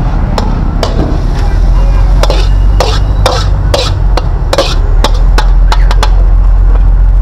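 Irregular sharp knocks and clatters, a dozen or more, over a loud steady low rumble.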